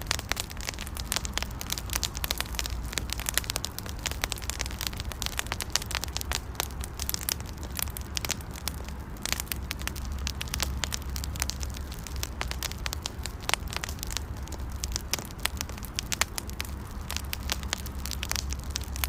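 Campfire burning with a steady low rumble and dense, irregular crackling and popping.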